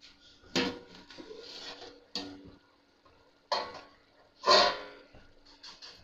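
A steel pot lid clanking against a steel cooking pot, four sharp metallic knocks with the loudest about four and a half seconds in, over a faint steady hum.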